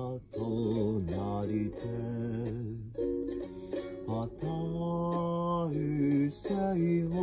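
Improvised music in short phrases of held, wavering melodic notes over a lower sustained line.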